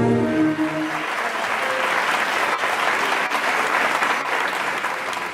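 Audience applauding, a dense steady clapping that takes over as the last notes of the music die away in the first second.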